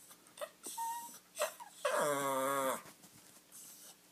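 Bichon frise whining: a short high squeak about a second in, then a louder drawn-out whine lasting about a second.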